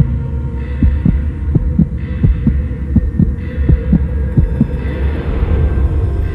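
Background music: a steady low drone with held tones and a pulsing, heartbeat-like low beat about twice a second.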